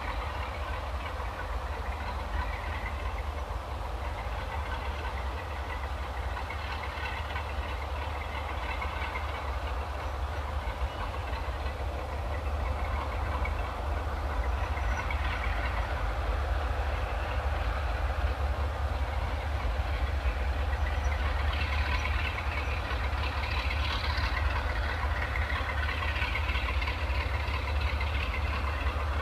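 Class 46 diesel-electric locomotive 46 034 and its 40-wagon freight train easing away down the Lickey Incline with the wagon brakes pinned down. The locomotive's Sulzer twelve-cylinder engine runs under a heavy low rumble, along with the clatter of the wagons. The sound grows louder about halfway through and turns brighter and more clattery near the end.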